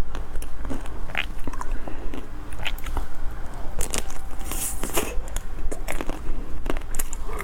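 Close-miked biting and chewing of a Magnum ice cream bar, its hard chocolate coating cracking in quick, irregular crackles.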